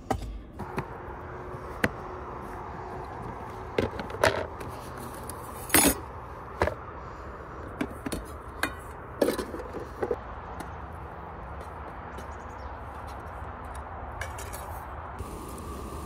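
Scattered knocks and clatters of camping gear being handled and packed into a plastic storage tote, the loudest about six seconds in, over steady background noise.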